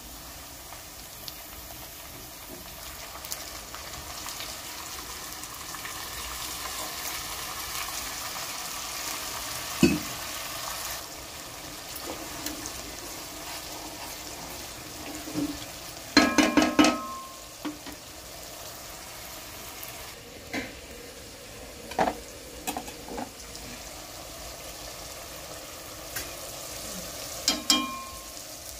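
Food sizzling steadily as it fries in hot oil in a pan, with a metal utensil stirring and striking the pan in ringing clinks: once about a third of the way in, a quick cluster past the middle, and a few more near the end.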